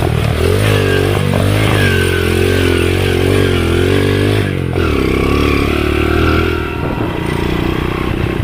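Underbone motorcycle engine revving under load, its pitch rising and falling with the throttle. It drops off briefly about four to five seconds in, then runs on more steadily.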